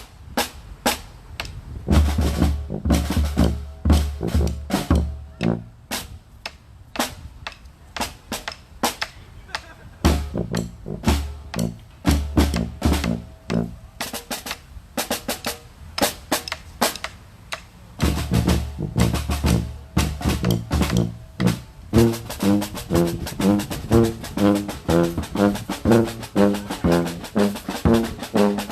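Street-band drumming: a snare drum playing a dense, steady pattern, with heavy bass-drum phrases coming in and dropping out every few seconds. About 22 seconds in, pitched instruments join with a repeating riff over the drums.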